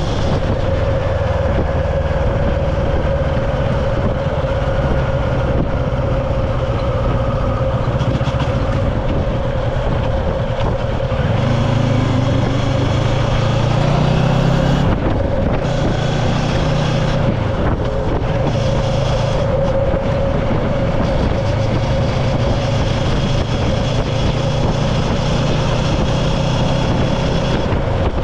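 A motor vehicle running steadily, a continuous engine hum with a steady whine, rising briefly in pitch about twelve seconds in.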